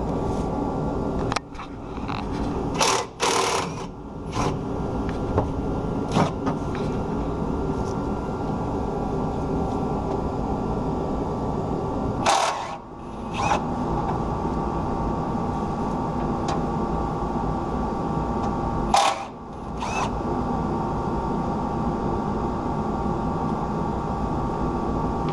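Ridgid 18V cordless impact driver hammering steadily as it works the bolts holding a truck's skid plate, with a few brief pauses and sharp clicks where the trigger is let go.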